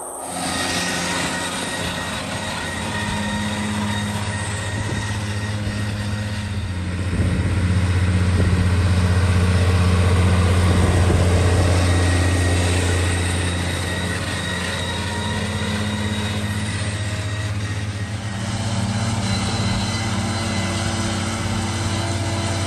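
Farm tractor's diesel engine running steadily under hay-field work. It grows louder for several seconds in the middle, then eases back.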